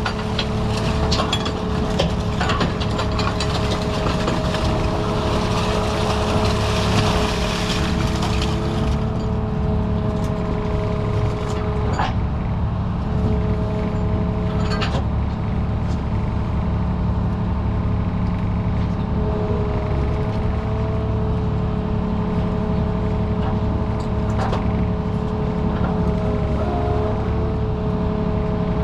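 A scallop fishing boat's machinery running steadily: a low engine drone with a steady two-note whine on top and occasional sharp metallic knocks. A hiss rides over it and stops about nine seconds in.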